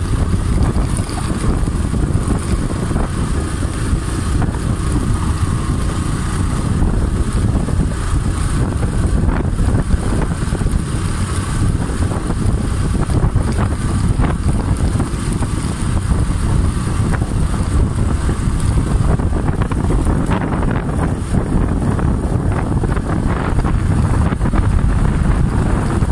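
Steady wind rushing over the microphone from riding at speed on a motorcycle, with the engine running underneath.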